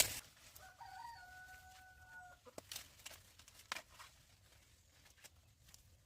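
A rooster crowing once, one held call of nearly two seconds, followed by scattered light clicks and rustles.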